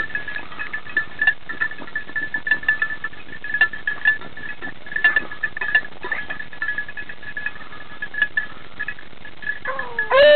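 A beagle baying once near the end, a long howl that rises and then holds, as a hound gives tongue on a hare's trail. Under it, a steady high tone and scattered light clicks.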